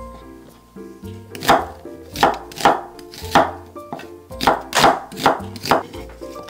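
Chef's knife chopping potato and onion on a wooden cutting board: about eight sharp knife strikes against the board, starting about a second and a half in, over soft background music.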